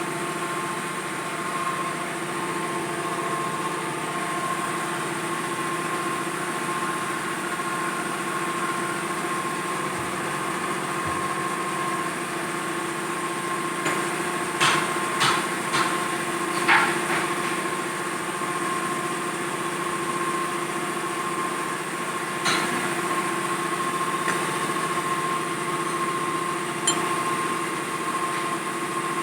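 CNC lathe running with a steady machine hum made of several constant tones. A handful of sharp metallic clicks or knocks come about halfway through, and one or two more near the end.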